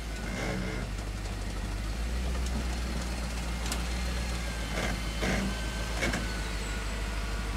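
Lifted Hummer H3's engine running low and steady as it crawls slowly up a steep rutted dirt climb, with a few brief scrapes from the tyres on dirt and rock about five and six seconds in.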